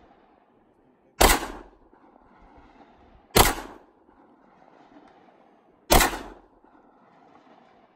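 Three single shots from a semi-automatic pistol fired one at a time, a second or two apart, each sharp crack trailing off briefly.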